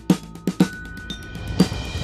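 Background music with a drum-kit beat (bass drum and snare hits) over held chord tones.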